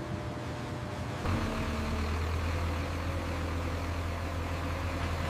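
Heavy truck engine idling with a steady low rumble. It comes in about a second in over a fainter industrial hum.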